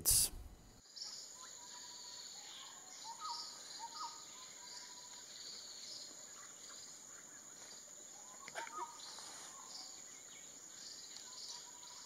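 Forest ambience: a steady high-pitched insect drone, with soft short bird calls in a cluster between about one and five seconds in and again around nine seconds. A single sharp click comes just before the second group of calls.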